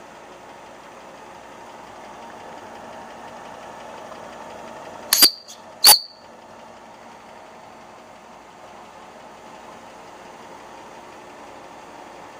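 Wilesco D21 model steam engine running steadily. About five seconds in come two short, sharp, high-pitched sounds about half a second apart, the loudest thing heard.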